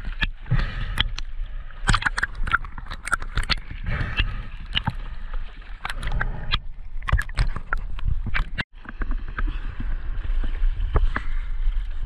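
Water sloshing and gurgling around a swimmer moving through shallow water, with frequent sharp clicks and knocks.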